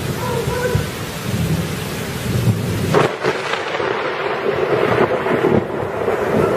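Thunderstorm: heavy rain pouring steadily under low rolling thunder, with a sharper crack of thunder about three seconds in.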